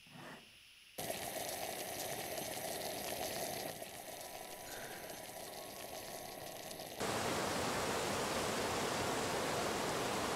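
Camping gas stove burner hissing steadily, starting abruptly about a second in as the gas is lit under a tin can. About seven seconds in it cuts to a louder, even rush of water.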